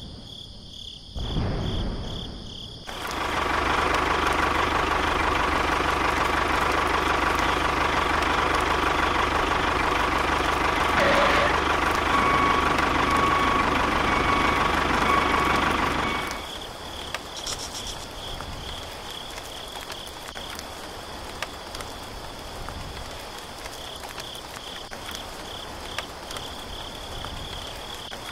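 A tractor engine runs steadily for about thirteen seconds with an even hum, starting a few seconds in and cutting off abruptly. Crickets trill in a high, pulsing chirp under it and carry on after it stops.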